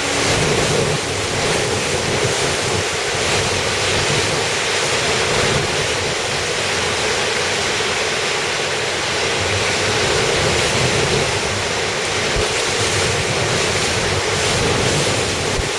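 Typhoon wind and driving rain: a loud, steady rushing noise, with gusts buffeting the microphone.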